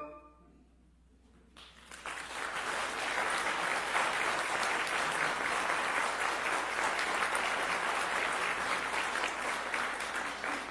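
Audience applauding, starting about a second and a half in after a short quiet and carrying on steadily.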